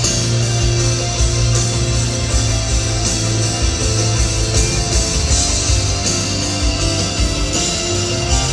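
Live rock band playing an instrumental passage, with electric guitar over sustained bass and drums, as heard in a concert hall.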